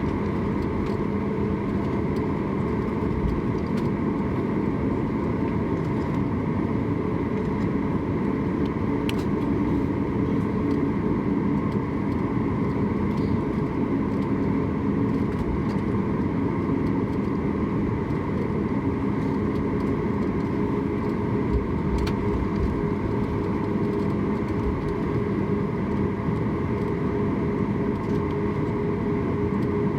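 Steady cabin noise inside a Boeing 737 MAX 8: the CFM LEAP-1B engines running at a constant setting, heard as an even rumble and hiss with a few held humming tones.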